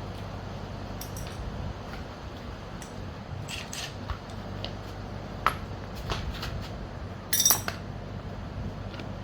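Metal hand tools clinking and clattering, sockets and wrenches knocked against each other and set down in a series of sharp clicks, with a louder clatter about seven seconds in. A low steady hum runs underneath.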